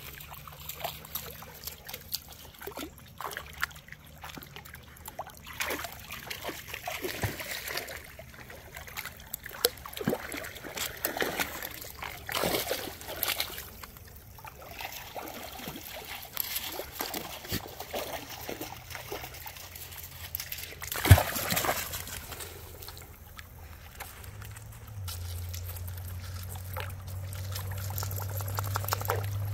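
Dogs wading through shallow creek water, with irregular splashing and sloshing around their legs. There is one louder, sharp sound about two-thirds of the way through, and a low steady hum comes in near the end.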